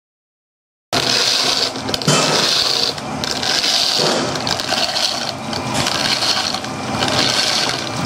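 Power mixer churning dry grout powder in a metal bucket, starting about a second in: a steady scraping hiss that swells and fades about once a second. About halfway through, water is poured in from a jug and the mix begins to turn wet.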